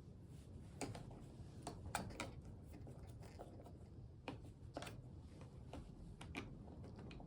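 Faint, scattered clicks and light taps, a few at irregular intervals about a second apart, as small tools and parts are handled over a low steady hum.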